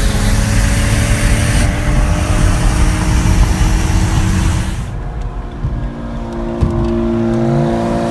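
Car engine at full throttle with heavy wind and road rush from a street-racing run. About five seconds in it cuts to a quieter, steady engine hum inside a car cabin, with a short rising rev near the end.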